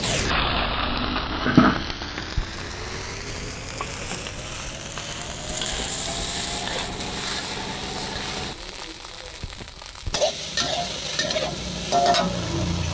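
Seafood fried rice sizzling in a hot wok as it is stir-fried, with sharp knocks and scrapes of the spatula against the pan, a cluster of them near the end.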